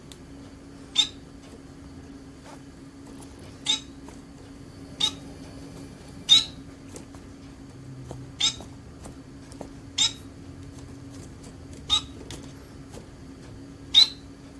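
Society finch (Bengalese finch) giving short, sharp call notes, about eight in all, one every one and a half to two seconds.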